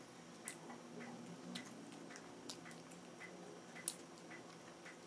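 Faint, scattered clicks and light taps from someone eating at a table, handling a paper cup and food packaging, in an otherwise quiet room.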